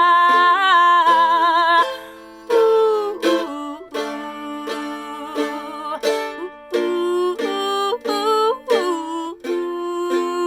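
A woman's voice holds the final sung note, wavering, over strummed acoustic mandolin for about two seconds, then the mandolin plays on alone in a plucked outro to the folk song.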